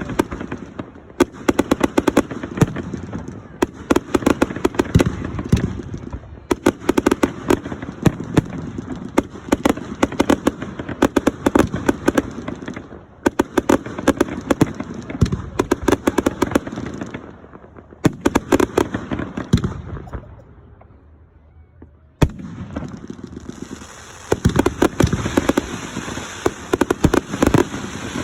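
Fireworks display: volleys of rapid bangs and crackles coming in waves. The volleys die away briefly about twenty seconds in, then another barrage starts.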